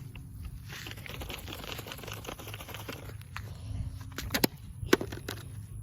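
Shaken aluminium Pepsi can being battered: a crackly, hissing fizz for about two and a half seconds, then a few sharp knocks, the loudest near the end.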